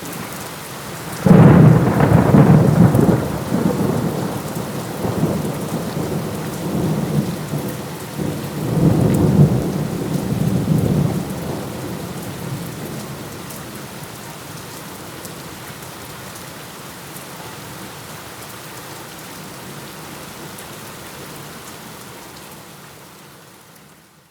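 Steady rain with a sudden loud thunderclap about a second in that rumbles on for several seconds, then a second roll of thunder a few seconds later. The rain continues on its own and fades out near the end.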